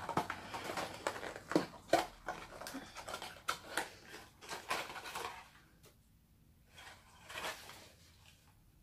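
Small cardboard box being opened and its contents worked out by hand: a run of irregular scrapes, clicks and rustles that dies down about five and a half seconds in, with a couple of faint brief rustles after.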